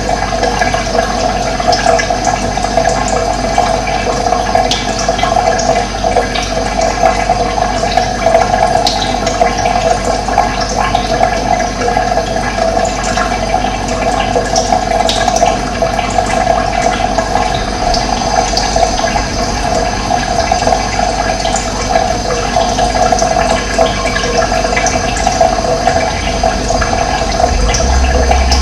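Running water rushing steadily, with a few faint, brief bird chirps above it.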